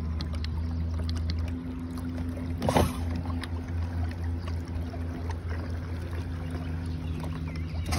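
Bixby electric kayak motor running under way with a steady low hum, its tone changing about a second and a half in. A brief burst of noise comes near three seconds in.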